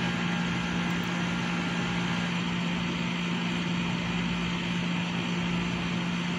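Steady mechanical hum with a constant low tone and an even noise, unchanging throughout.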